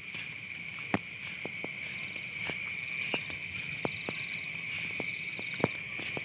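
Night chorus of crickets or similar insects: a steady high-pitched trill, with a dozen or so sharp clicks scattered through it.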